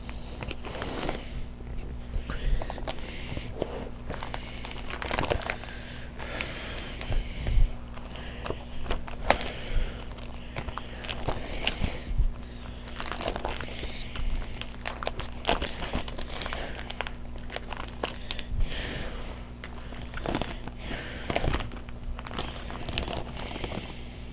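Crinkling of a foil Pokémon booster pack wrapper and trading cards being handled, in irregular rustles and small clicks.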